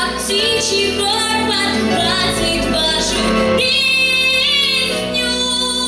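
A vocal trio singing with young, high voices over instrumental accompaniment, holding one long note around the middle.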